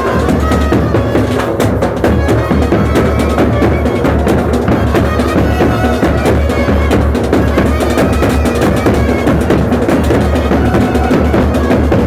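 Festival band music: loud, dense, fast drumming with a heavy bass drum, and a high melody line playing over it.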